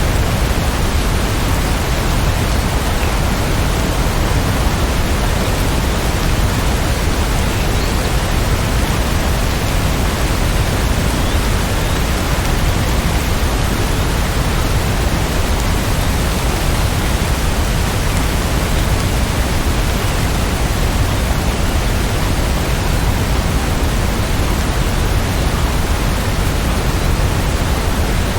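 Steady heavy rain, an even, unbroken rush of noise that holds the same level throughout.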